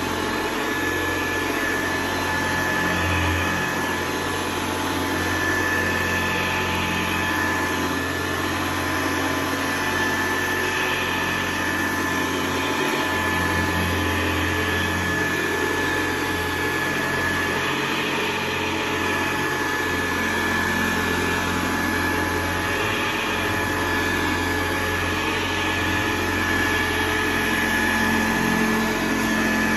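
Vintage Hoover upright vacuum cleaner running as it is pushed over carpet: a steady motor hum with a constant high whine.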